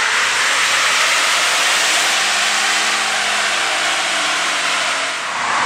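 A 2022 Ford F-150 PowerBoost's 3.5 L twin-turbo V6 runs hard on a chassis dyno during a tuning pull. Its engine note is faint under a loud, steady rushing noise, and the rush dips briefly near the end.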